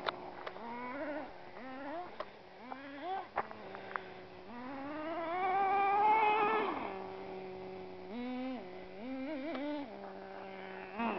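Traxxas Stampede nitro RC truck's small glow-fuel engine, settling back to a steady idle between short throttle blips. About halfway through it revs up in one long rising whine as the truck accelerates, then drops back to idle. A few sharp clicks come in the first three seconds.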